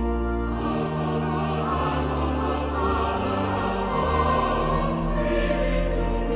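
Background music: slow, sustained choir-like chords over held bass notes that change every second or two.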